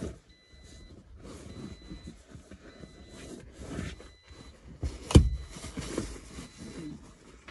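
Faux leather car seat cover rustling and scraping as it is worked into place over a front seatback, with one sharp knock about five seconds in.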